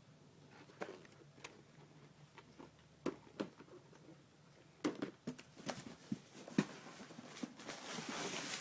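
Packaging being handled by hand: scattered light taps and clicks, with a rustle building near the end as wrapping starts to crinkle.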